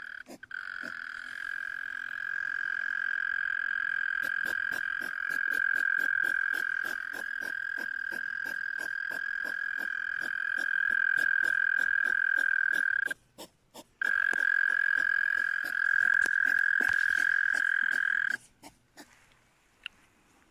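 Hedgehogs making a long, steady high-pitched whine with a fast run of clicks through it, about four a second. The whine breaks off for about a second roughly two-thirds of the way in, resumes, and stops shortly before the end.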